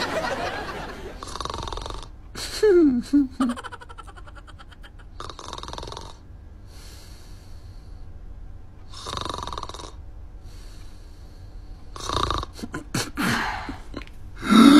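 A man snoring in slow breaths, one long snore about every four seconds. A short voice falling in pitch comes in a couple of seconds in, and more snorting breaths come near the end.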